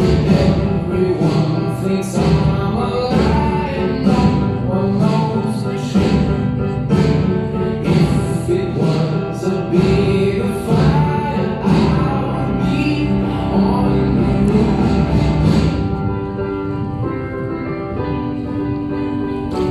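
A song with singing over a steady beat. About sixteen seconds in, the beat drops out and held instrumental tones carry on.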